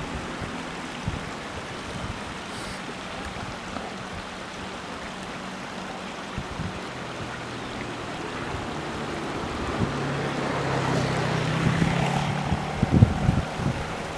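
Steady rush of river water with wind on the microphone. A low steady hum underneath grows louder about ten seconds in, and a few sharp knocks come near the end.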